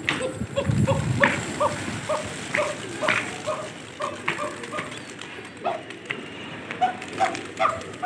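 An animal giving a fast run of short, high yelping calls, about four a second. The calls fade out a little past halfway and return briefly near the end.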